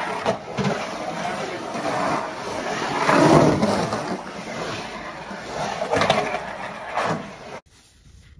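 Skateboard wheels rolling and carving on the concrete walls of a skate bowl: a continuous rolling rumble that swells about three seconds in as the rider carves low in the bowl, with a few sharp clacks of the board. It cuts off suddenly near the end.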